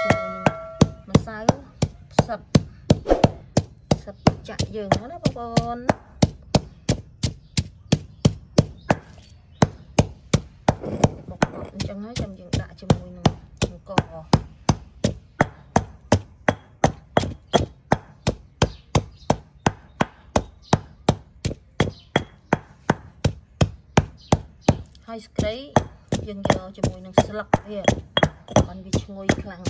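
Stone pestle pounding in a heavy stone mortar: a steady run of sharp knocks, about three a second.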